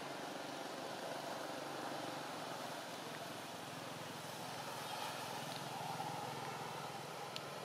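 A steady low engine hum under even background noise, with one faint click near the end.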